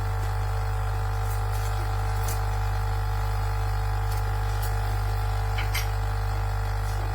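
Pod coffee machine's pump buzzing steadily as it runs, with a few faint clicks.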